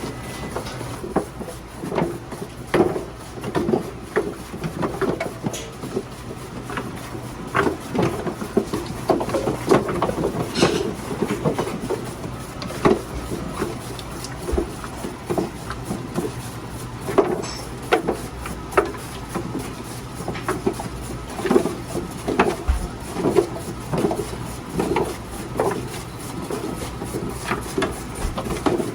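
Radish-slicing food machine running with a steady low hum, under irregular clacks and knocks that come several times a second.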